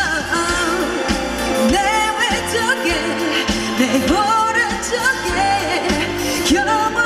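A female vocalist sings a pop ballad live into a handheld microphone, over pop band accompaniment, with a wavering sung melody line throughout.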